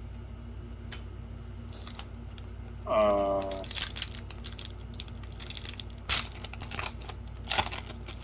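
Crinkling, rustling handling noise of a pack of hockey trading cards and its wrapper, in irregular strokes with a few sharper crackles through the second half. A short hummed vocal sound, falling in pitch, about three seconds in.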